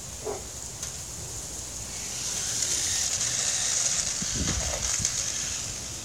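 Toy remote-control cars driving on a concrete driveway: a high electric-motor whine and tyre hiss that swells about two seconds in and fades near the end, with a few soft knocks in the middle.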